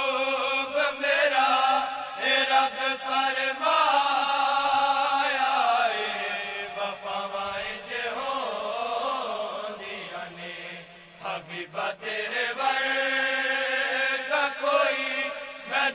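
A chorus of men's voices singing a Punjabi devotional kalaam, holding long wavering notes without clear words. The voices dip briefly about ten seconds in, then swell again.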